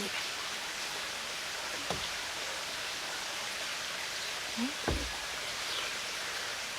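Steady rushing of a mountain stream flowing close by, with two soft low thumps about two and five seconds in.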